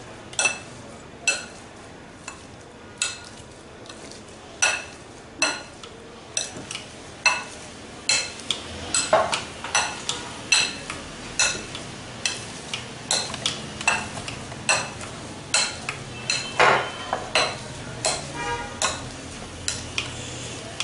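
Metal potato masher clinking against a glass mixing bowl as boiled potatoes are mashed with spices, each stroke a sharp ringing clink. The clinks come about once a second at first and get quicker, about two a second, in the second half.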